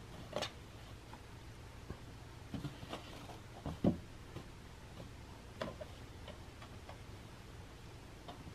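Scattered light taps and scratches at uneven spacing, the loudest about four seconds in: a cat's paw and claws working at the holes of a cardboard box to fish out a toy, over a faint steady low hum.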